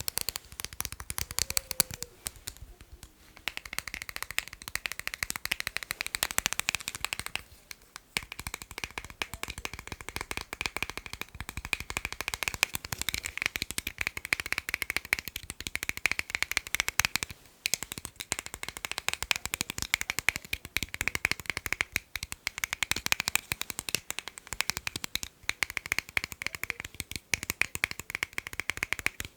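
Fast tapping on hard objects: a dense, rapid patter of taps, broken by a few short pauses.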